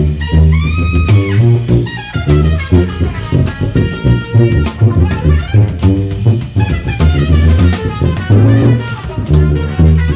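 Sousaphone playing a rhythmic funk bass line of short low notes over a jazz backing track with drums.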